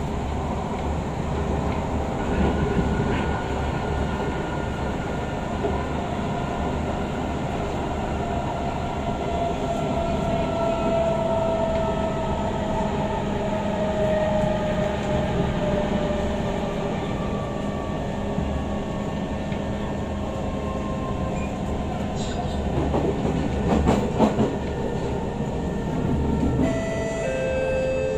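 SMRT C151 train running, heard from inside the carriage: a steady rumble of wheels and running gear, with the GTO-inverter traction motor whine slowly falling in pitch as the train slows toward the station. A few knocks from the wheels about 23 seconds in.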